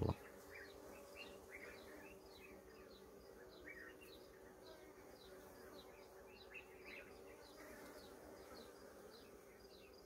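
Faint steady hum of honeybees at a small nucleus hive as the colony starts its early-morning foraging flights, with many short, high chirps of small birds over it.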